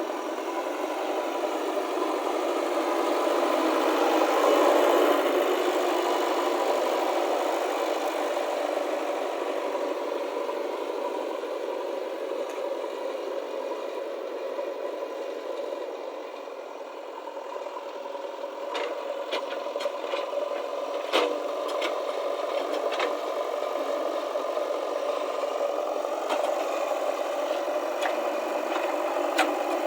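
JCB backhoe loader's diesel engine running steadily, swelling about four seconds in and easing off for a moment around sixteen seconds, with scattered clanks and rattles in the second half.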